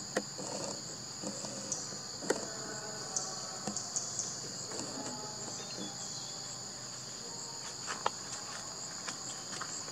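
Steady, high-pitched chorus of forest insects buzzing without a break, with a few sharp clicks scattered through it.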